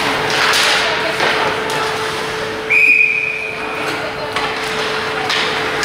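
Ice hockey referee's whistle, one steady high blast of about a second, stopping play. Around it, the rink's steady noise of skates on ice, with scattered knocks of sticks and puck.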